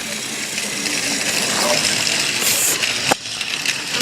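Battery-powered Thomas toy train running along plastic track, a steady motor whir with small clicks and clatter, and one sharp click about three seconds in.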